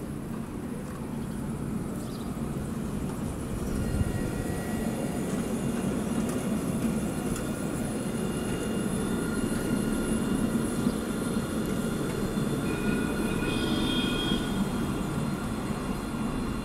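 Alstom Citadis electric tram passing close by at low speed: a steady rumble of steel wheels on the rails, with the high, steady whine of its electric drive as several tones at once from a few seconds in.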